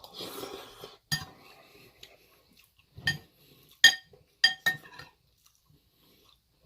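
Cutlery clinking against a dish while eating: about five sharp clinks that ring briefly, two close together near the middle, with a soft rustling stretch in the first second.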